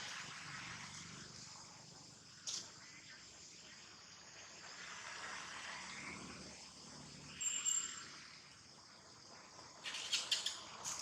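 Insects chirring steadily in the background. A single click about two and a half seconds in, a short high-pitched call near eight seconds, and a quick cluster of sharp clicks near the end.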